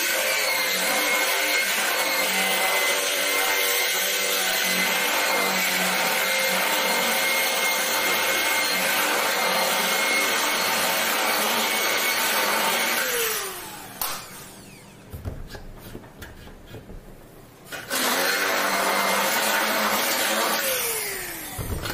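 Handheld electric drill running as it bores into an aluminium door frame: one long steady run that winds down about 13 seconds in, a pause of a few seconds, then a second short run of about three seconds that winds down near the end.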